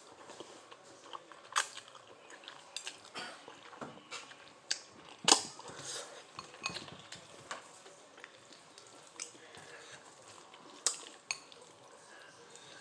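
Scattered sharp clicks and taps of an eating utensil against a dish while eating noodles, with faint chewing between them. The loudest tap comes about five seconds in.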